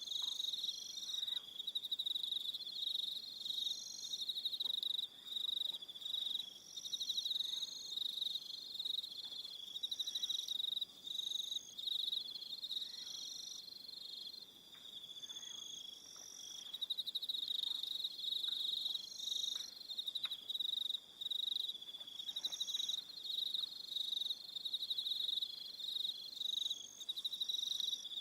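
Evening chorus of crickets: a steady, fast-pulsing high trill, with shorter, higher-pitched calls from other insects coming and going every second or so.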